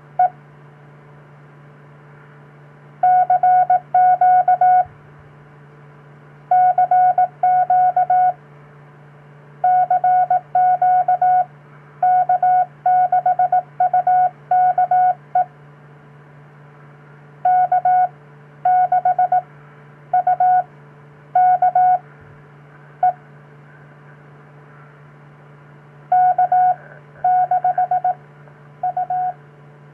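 Hand-sent Morse code (CW): a single beep tone keyed on and off in dots and dashes, grouped into characters with pauses between them, heard over an FM radio receiver above a steady low hum.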